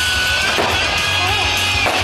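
Loud music with guitar.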